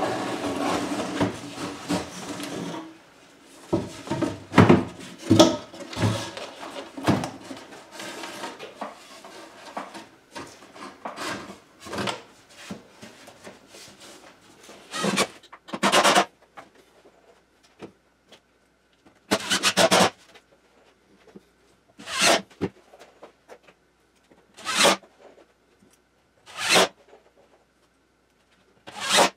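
Plywood panel rubbing and knocking against a wooden frame as it is fitted into place. Then a DeWalt cordless drill drives screws into the plywood in about seven short bursts, a couple of seconds apart.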